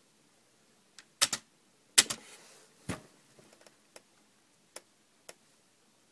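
Scattered sharp clicks and taps at a computer desk, like keyboard or mouse clicks, eight or nine of them at uneven intervals with quiet between, the loudest about two seconds in.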